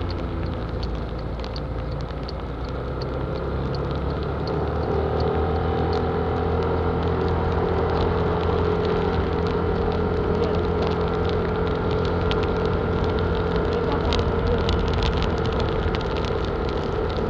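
Car running on a wet road in the rain: a steady engine and road rumble, with a whine that rises and grows louder about four seconds in, and scattered light ticks throughout.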